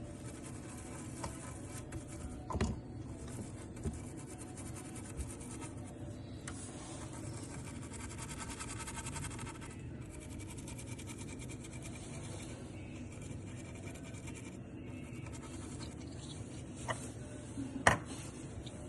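Small hand tools scratching and scraping at the bench during PS5 HDMI port repair work, with a few sharp clicks and taps, the loudest near the end.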